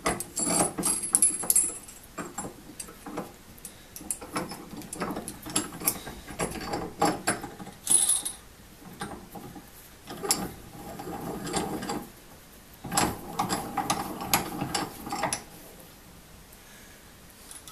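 Small metal vise parts clicking and rattling in irregular bursts with short pauses as the lock nut is fitted onto the threaded vise screw.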